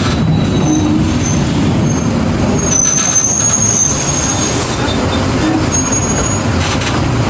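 Mercedes-Benz OF 1722 city bus heard from inside the cabin while driving: steady low diesel running and road noise, with brief thin high squeals near the middle.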